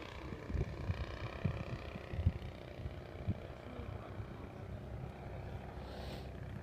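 The DLE55 single-cylinder two-stroke petrol engine of an RC aerobatic plane runs in flight, its buzzing tone fading over the first few seconds. Irregular low thumps of wind buffet the microphone.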